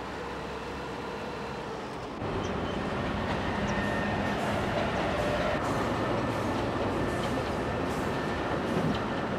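Rapid-transit train running on its track: a steady rumble with faint clicks, becoming louder about two seconds in.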